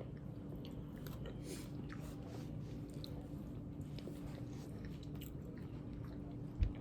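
Close-up chewing and biting: soft, wet mouth clicks and crunches of someone eating, over a steady low hum. A single low thump sounds near the end.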